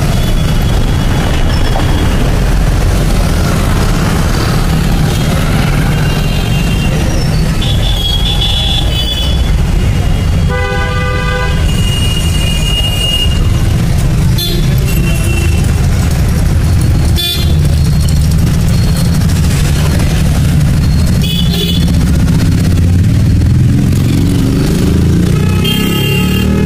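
Busy city street traffic: a steady rumble of passing engines with vehicle horns honking again and again. A longer, lower horn sounds about ten seconds in.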